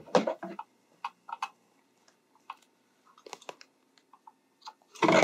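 A sewing machine's last few stitches, then scattered light clicks and handling noises as the fabric is drawn out from under the presser foot and the threads are snipped with scissors, with a louder rustle near the end.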